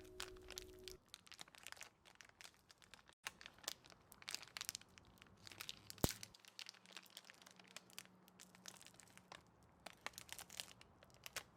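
Faint crinkling and small crackles from gloved hands handling a sticky, gooey tire-plug strip, with one sharp click about six seconds in.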